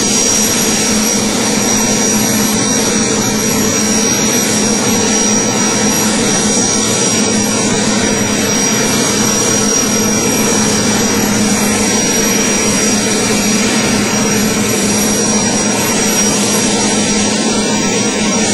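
Military transport helicopter running on the ground with its rotors turning: a steady turbine whine over the even noise of the engines and rotor.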